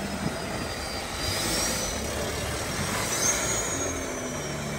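Nissan Patrol's engine running and revving in short swells as it works onto an obstacle, with a faint high whistle rising with the revs and a sharp knock about a quarter of a second in.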